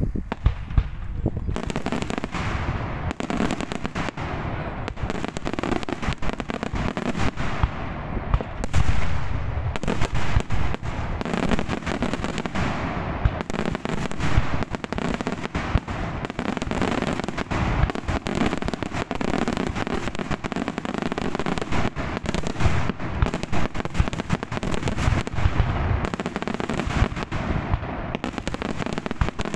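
Daytime fireworks display: a rapid, unbroken barrage of aerial bangs and crackling shells going off many times a second, loudest about a third of the way in.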